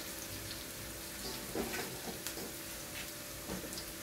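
Chopped garlic and onion frying in oil in a wok, a steady gentle sizzle with a few faint pops; the garlic is already browned.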